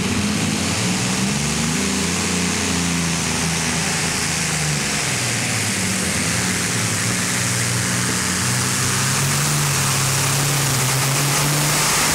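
Multi-engine modified pulling tractor at full throttle under load while dragging the weight-transfer sled: a loud, dense engine noise whose pitch wavers and dips in the first few seconds, then holds steady, growing slightly louder toward the end.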